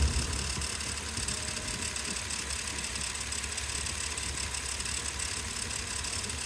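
Nissan Xterra engine idling steadily, with the odd noise the owner suspects may be timing chain chatter.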